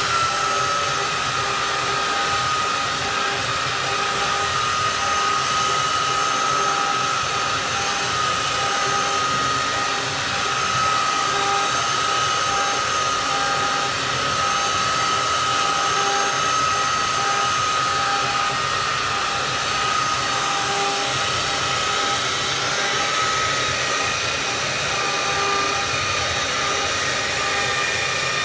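Handheld electric belt sander running steadily as it is pushed back and forth over a wooden tabletop, giving a constant high motor whine over the rasp of the belt on the wood.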